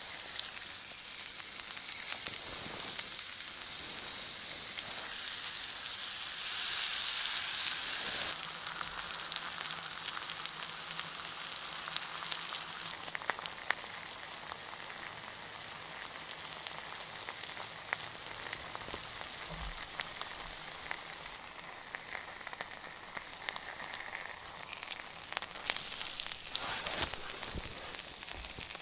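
Steak, with potato and onion slices, sizzling and crackling on a fire-heated flat stone. The sizzle is loudest for a couple of seconds about seven seconds in, then settles into a steadier hiss with scattered pops.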